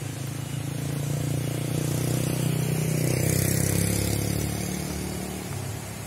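A motor vehicle's engine running steadily as it passes close by, growing louder to a peak about halfway through and then fading away.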